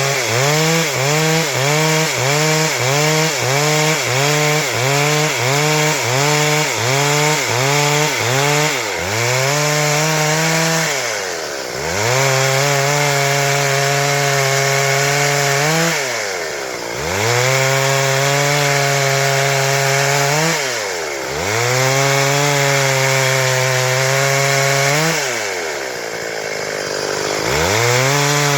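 Stihl MS 382 two-stroke chainsaw cutting wood. For the first several seconds the engine pitch wavers about twice a second, then it holds steady under load, dropping and picking back up four times as the throttle is eased and reapplied.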